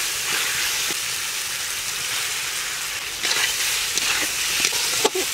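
Food sizzling in hot oil in a cooking pan: a steady frying hiss, with a few short knocks and scrapes in the second half.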